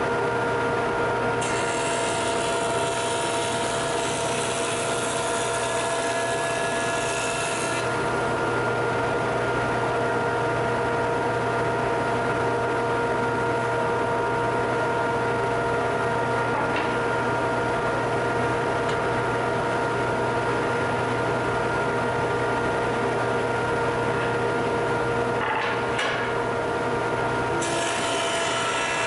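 Jet JJP-12HH 12-inch jointer with a helical cutterhead, together with a dust collector, running at a steady pitch while a birch board is face-jointed. A hissing cut as the board passes over the cutterhead from about a second and a half in to about eight seconds, and a second pass beginning near the end.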